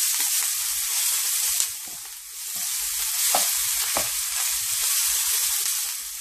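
Ginger garlic paste sizzling in hot oil in a pan while a wooden spatula stirs it. The sizzle is a steady high hiss that dips briefly about two seconds in and then picks up again, with a couple of light knocks of the spatula a little after three seconds.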